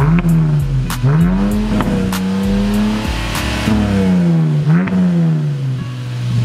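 Mercedes-Benz GLK 300's V6 engine revved through its exhaust while parked, the pitch climbing and dropping about three times as the throttle is blipped and held.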